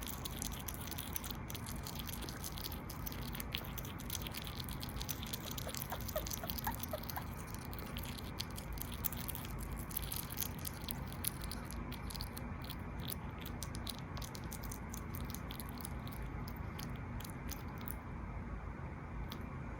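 Pet hedgehog chewing boiled egg: quick, wet smacking and clicking mouth sounds that thin out near the end.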